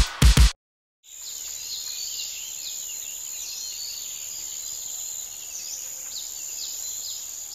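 Bush ambience: a steady, high-pitched insect drone with repeated short bird chirps over it. It starts about a second in, after the last loud beats of music cut off.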